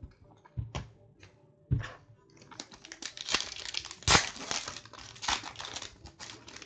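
Panini Prizm soccer card pack wrapper crinkling and tearing as it is opened by hand: a few separate taps and clicks in the first two seconds, then a few seconds of dense crinkling, loudest about four seconds in.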